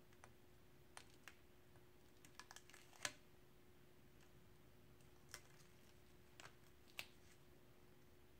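Faint, scattered clicks and taps from a pointed hand tool picking and scratching at spray-painted paper, the sharpest about three seconds in, over a faint steady hum.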